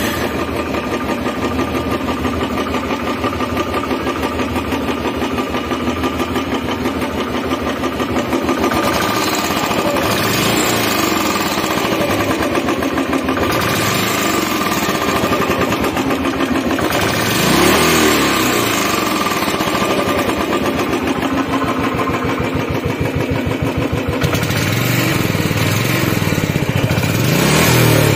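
Motorcycle engine on its stock exhaust, idling steadily, with a short rev about two-thirds of the way through and another near the end.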